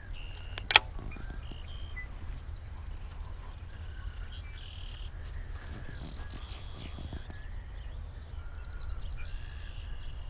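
Birds chirping in short repeated calls over a steady low rumble, with one sharp click a little under a second in, the loudest sound.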